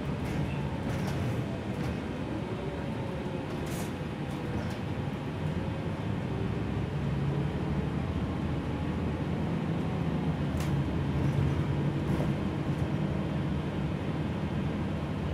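Interior of a Gillig low-floor city bus under way: a steady drone of engine and drivetrain with a faint whine that slowly drifts in pitch, and a few sharp clicks from the cabin.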